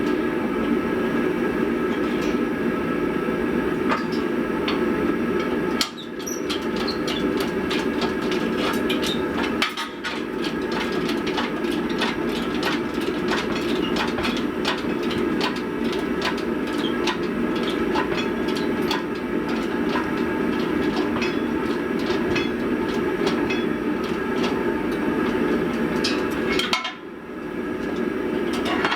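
Steady mechanical roar of forging equipment in a blacksmith's shop, with many small irregular clicks and crackles over it. It dips briefly three times.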